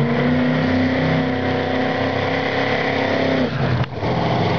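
The JCB GT racing backhoe's supercharged V8 is held at high revs under a smoky burnout, its pitch creeping up. It falls away about three and a half seconds in, drops out briefly, then picks up again.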